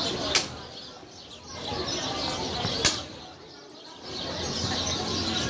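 Wooden xiangqi pieces being set down on the board with two sharp clacks about two and a half seconds apart, as one move follows another.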